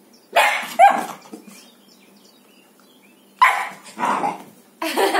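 Young pit bull puppy barking in short bursts: two quick barks near the start, two more past the middle and a longer run near the end.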